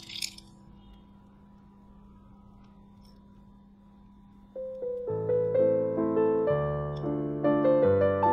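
Solo piano background music. A short burst of noise comes at the very start, then soft fading notes, then a livelier phrase of piano notes begins about five seconds in.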